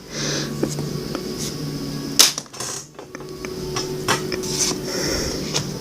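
Baseball trading cards being handled and slid past one another: light clicks and rustles, with one sharper tap about two seconds in.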